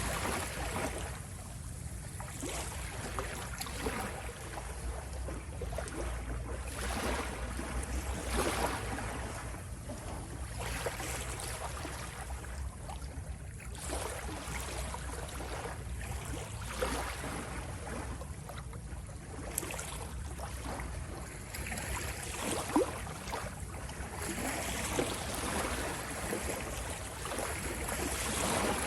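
Ocean waves washing and lapping, with surges of splash and hiss every couple of seconds over a steady low rumble.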